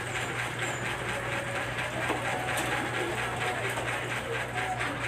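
Steady mechanical background noise: a low hum with a faint, evenly repeating clatter.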